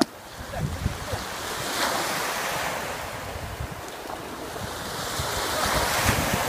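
Small sea waves breaking and washing up a sandy shore, the surf swelling about two seconds in and again near the end, with wind buffeting the microphone. A brief sharp click at the very start.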